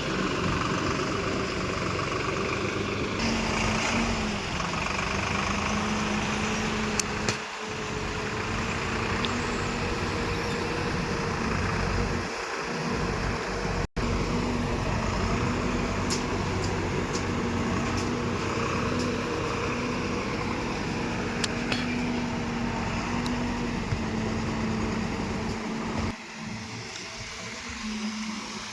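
Diesel engine of earth-moving machinery, a bulldozer or tractor, running steadily with a constant hum. The sound drops out for an instant about halfway through.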